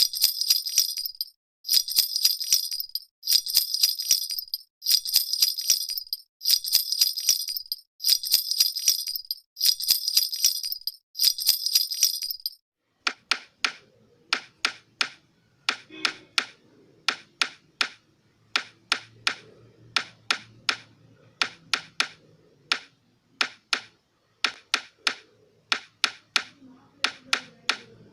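A baby rattle with small jingle bells is shaken in eight even bursts of jingling, about one every second and a half. About halfway through, the sound changes to sharp clicks and clacks in quick groups of two to four, over a faint hum.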